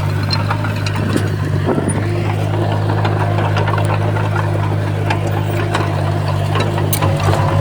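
Heavy construction-machine diesel engine running steadily, with scattered light clicks and knocks over it.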